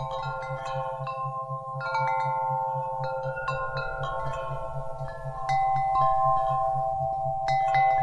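Wind chimes ringing, several tuned notes struck at random and left to ring on, with a fresh cluster of strikes, a little louder, about five and a half seconds in and again near the end. Under them runs a low, evenly pulsing isochronic tone.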